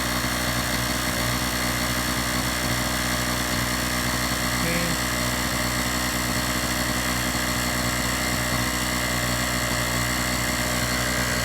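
Portable gasoline generator running at a steady speed, heard close up with an even engine note. It is loud, about 90 dB on a sound level meter: the louder of the two generators being compared.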